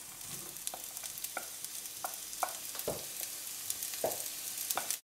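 Diced onions sizzling in hot olive oil in a frying pan, with a series of light taps as a wooden spoon scrapes them off a plate into the pan. The sound stops abruptly near the end.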